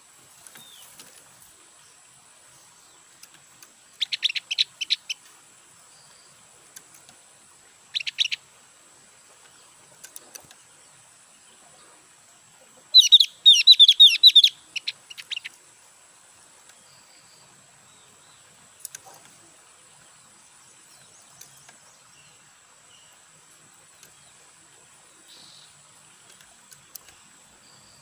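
Caged Javan grey-throated white-eye (opior jawa) giving bursts of rapid, high chattering calls: a short series about four seconds in, a brief one around eight seconds, and the loudest, longest chatter from about thirteen to fifteen seconds.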